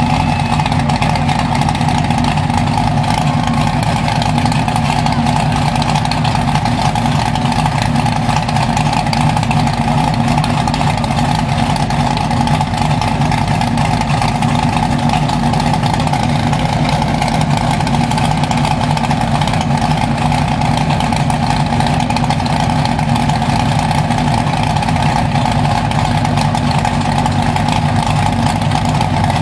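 Big-tyred mud truck engine idling steadily, with no revving.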